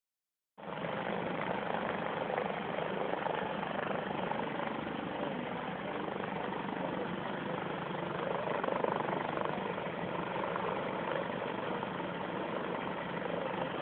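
Propeller airplane engine running steadily, a constant drone that starts about half a second in.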